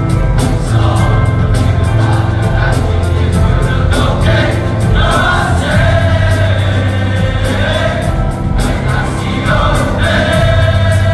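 A large choir of male students singing together over a steady beat and bass line.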